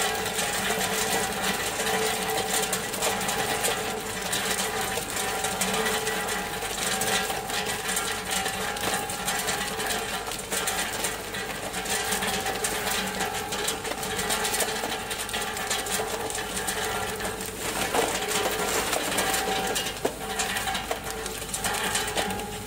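Solid tube ice from a tube ice machine's outlet clattering as it drops into a bin, a dense, irregular rattle of many small knocks. Under it the machine runs with a steady hum.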